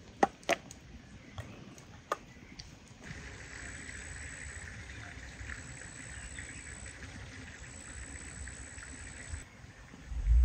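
Glass canning jars knocking against each other in a pot of water: a few sharp clinks in the first two seconds. Then a steady soft outdoor hiss, and a loud low rumble starts near the end.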